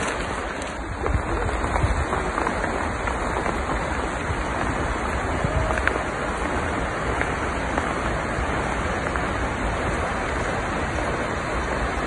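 Skógafoss waterfall: the steady, even rushing of a large volume of falling water.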